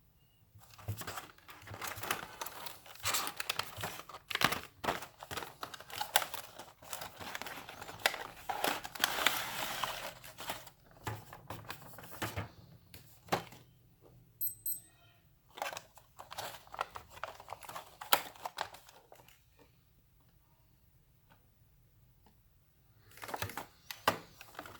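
Plastic packaging crinkling with small hard clicks and rattles as a phone-repair screwdriver set is handled, busiest for the first dozen seconds, then scattered clicks, a quiet stretch and a short burst of handling near the end.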